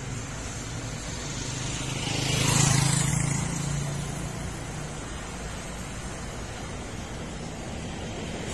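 A motorcycle passing close by on the road: its engine hum and tyre noise rise to a peak about two and a half seconds in, then fall away. Steady traffic hum underneath.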